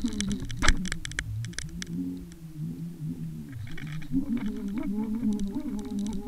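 Muffled underwater sound picked up by a Water Wolf camera submerged on a fishing line: a wavering low hum with scattered sharp clicks and ticks, the loudest click a little under a second in.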